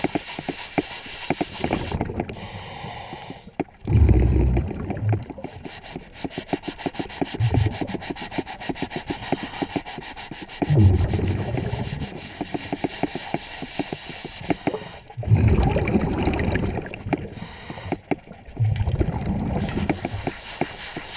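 A diver's exhaled bubbles surge every three to four seconds, over steady rapid clicking and rubbing as a zinc anode is handled against a boat's hull underwater.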